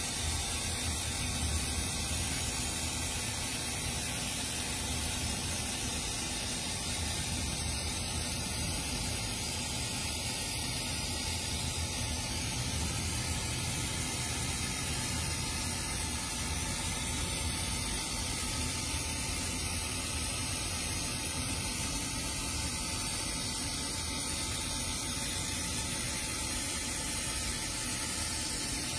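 Laser marking machine running as it frosts a mirror's surface: a steady hiss with a thin high whine on top and a low hum beneath, unchanging throughout.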